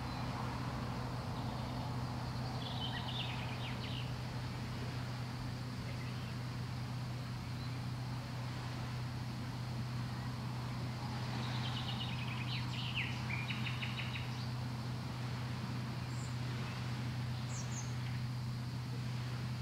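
Small birds chirping now and then in short runs of quick high notes, heard a few times, over a steady low hum and a constant rushing background noise.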